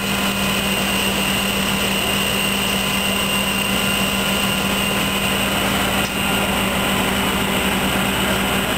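Fire engine's engine and water pump running steadily under load, a loud constant hum with a high whine over it.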